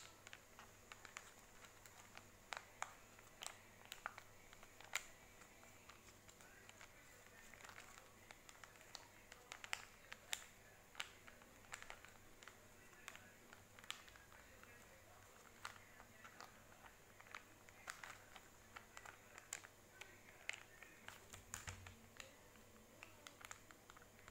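Quiet handling noise: irregular small clicks and crinkles, several a second at times, over a faint steady high whine.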